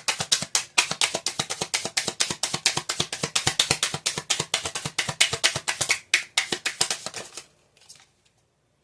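Tarot cards being shuffled by hand: a rapid run of sharp card slaps and clicks that stops about seven and a half seconds in.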